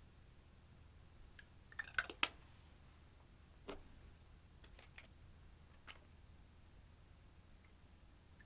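Scattered sharp clicks and taps of makeup compacts and tools being handled: a quick cluster of clicks about two seconds in, then single clicks every second or so.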